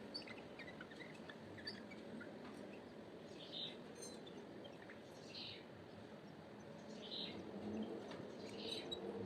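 Birds chirping: short, high calls repeating about every couple of seconds over a steady low background hiss.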